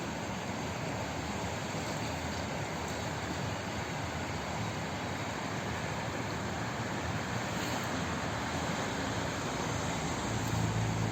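Flowing water making a steady, even rush, with a deeper low rumble swelling near the end.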